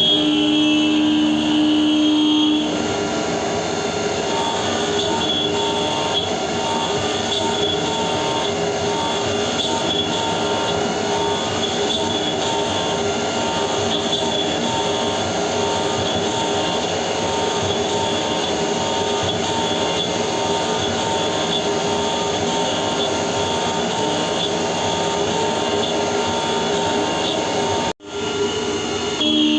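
CNC milling machine running with a steady whine, turning into a harsher, grinding metallic noise about three seconds in. The sound cuts out for a split second near the end.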